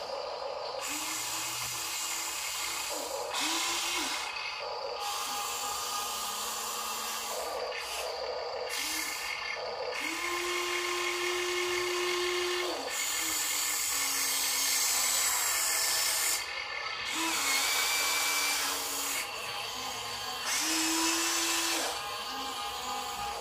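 A Huina RC excavator's small electric motors whine in short start-stop runs as the boom, arm and bucket move to dig and lift dirt. Each run is a steady tone lasting from half a second to a few seconds, and the longest comes a little after the middle.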